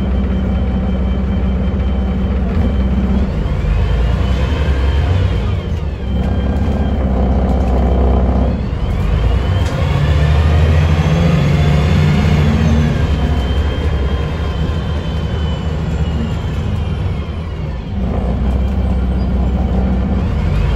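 Mercedes-Benz O405NH city bus heard from inside the passenger cabin while driving. The rear-mounted engine runs steadily, with a whine that rises and falls in pitch twice and starts to rise again near the end.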